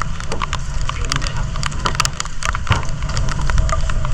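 Raindrops pattering irregularly in many sharp ticks on a surface close by, over a steady low rumble.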